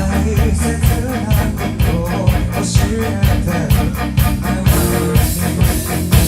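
A rock band playing live: drums keeping a steady beat under bass and guitar, with a sung melody in the first half and a cymbal crash about three-quarters of the way through.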